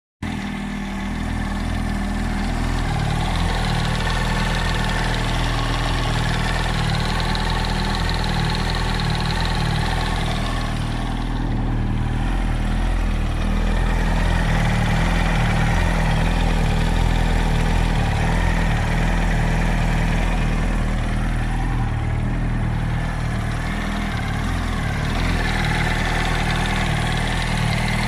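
2007 Yamaha R1's inline-four engine idling steadily with a knocking noise, which the owner suspects comes from the camshaft or from the clutch springs or basket.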